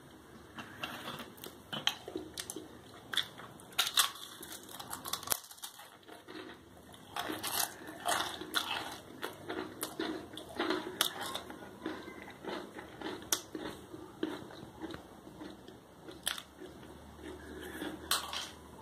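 Dry square crackers crunching as they are bitten and chewed: many irregular crisp crunches, with a short lull about five seconds in.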